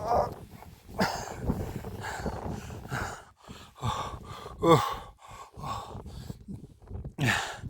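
A person breathing hard in irregular gasps and sighs, with a few short groans that fall in pitch, the clearest a little under five seconds in.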